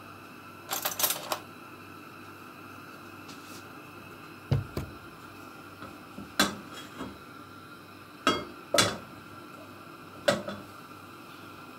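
Kitchen dishes and utensils being handled on a counter: a scattered series of clinks and knocks, a quick cluster about a second in, then single ones every second or two.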